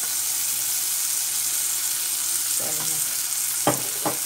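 Diced bacon and beef frying in olive oil in a pot, a steady high sizzle, with two sharp knocks near the end.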